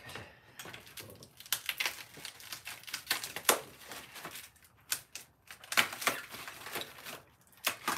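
Packaging being handled and pulled off a new e-bike: irregular rustling and crinkling with sharp clicks and taps.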